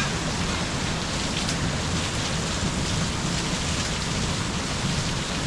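Heavy rain pouring steadily onto a backyard, an even, unbroken hiss of rain on surfaces.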